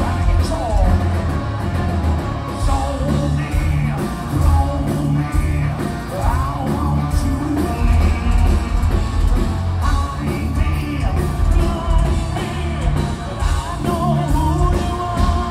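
A live prog metal band playing loudly, with electric guitars, bass and drums, and a lead voice singing over them.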